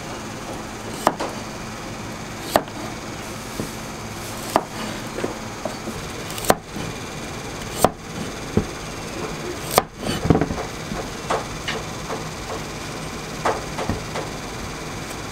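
Kitchen prep: sharp knocks and clacks of utensils on a board or counter, one every second or two and busier in the last few seconds, over a steady hum.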